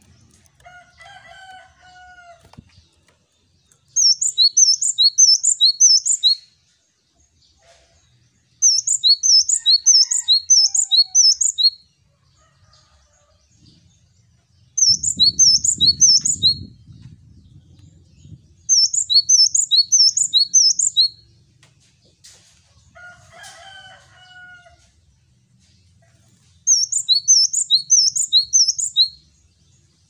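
Male cinereous tit singing its high, ringing 'wucit wucit' song: five loud bouts of quickly repeated two-note phrases, each bout two to three seconds long, with pauses between them.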